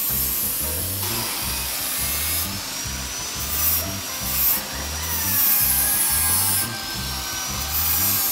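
Handheld angle grinder grinding the edge of a sheet-metal sink: a loud, hissing grind over a motor whine that wavers slowly in pitch as the disc is pressed against the metal. Background music with a steady bass beat runs underneath.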